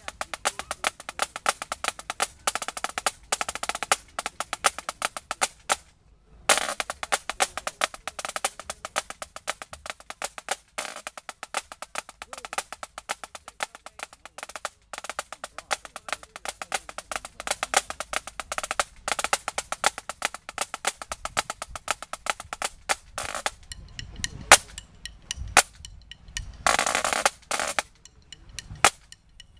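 Andante pipe band snare drum played solo with wooden sticks: fast, crisp strokes and rolls. It stops briefly about six seconds in, then resumes; near the end the strokes are sparser, with one more short roll.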